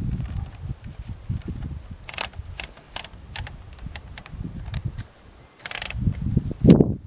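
1958 Royal Aristocrat manual portable typewriter being typed on, its keys struck one at a time in separate sharp clacks, about two or three a second, over dull knocking. A louder, longer mechanical clatter with a heavy thump comes near the end.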